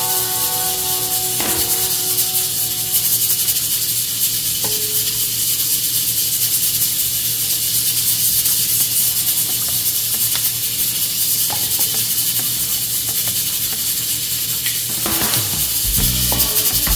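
A knife tip prying and scraping coconut meat away from the hard shell: a steady gritty scraping with a few sharp cracks and clicks. A metal bowl rings and fades away over the first couple of seconds.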